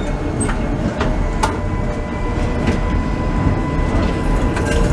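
Tatra T5C5 tram running, heard from the driver's cab, with a steady low rumble and a few sharp clicks from the wheels over the track early on. A faint steady whine runs through most of it.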